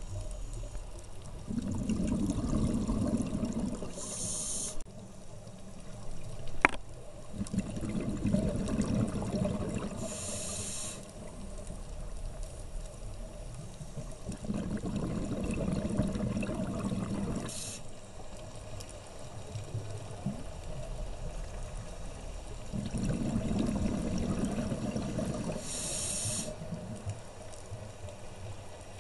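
Scuba diver breathing through a regulator underwater, four slow breaths about seven seconds apart. Each breath is a few seconds of low bubbling exhaust followed by a short high hiss from the demand valve. One sharp click comes about six and a half seconds in.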